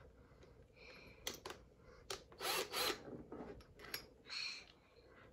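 Makita cordless drill's chuck being turned by hand to clamp a drill bit: a faint run of clicks and scraping rattles.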